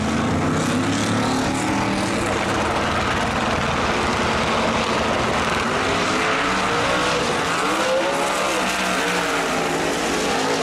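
Drag-racing car engines running loudly at the starting line. About two-thirds of the way in they launch, and the engine pitch climbs and drops as the cars accelerate away down the strip through the gears.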